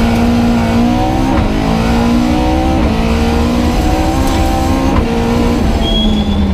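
Opel Kadett 2.0 Rallye's four-cylinder engine heard from inside the cabin, accelerating hard through the gears. The pitch climbs, drops sharply at upshifts about one and a half and three seconds in, climbs again, then levels off and eases down near the end.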